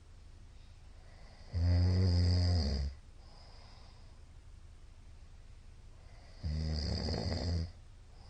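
A middle-aged man snoring loudly in his sleep: two low, buzzing snores about five seconds apart, each lasting just over a second.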